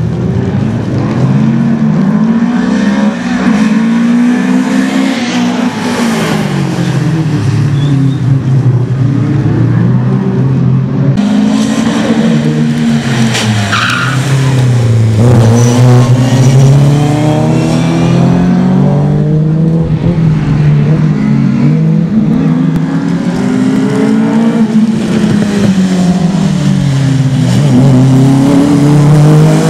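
Rally cars accelerating hard, engines revving up and dropping back at each gear change, over and over. Brief tyre squeal partway through, and an abrupt switch to another car's run about a third of the way in.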